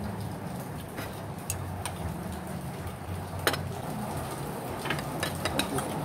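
A metal ladle and utensils clink against an aluminium cooking pot and bowls as soup is served. There are a few sharp separate clicks, the loudest about halfway through and a quick cluster near the end, over a steady low background hum.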